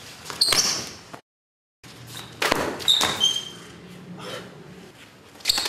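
Sparring scuffle: sharp slaps and thuds of blows and a body going down, with short high squeaks of shoes on a hard tiled floor. The sound cuts out completely for about half a second after the first impacts, then more thuds and squeaks follow, with another cluster near the end.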